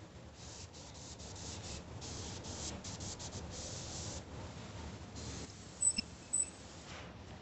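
Cloth rag rubbing along a 1.6 mm 4047 aluminium TIG filler rod in quick hissing strokes, wiping contamination off the rod before welding. Two short high squeaks come near the end.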